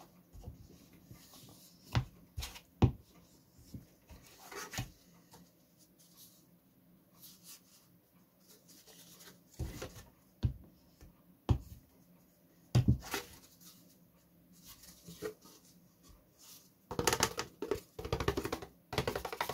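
Scattered knocks, taps and rustles from handling a balsa tail fin covered in heat-shrink film and a covering iron on a workbench, with a denser run of rapid tapping and crinkling near the end as the tightened film is tested.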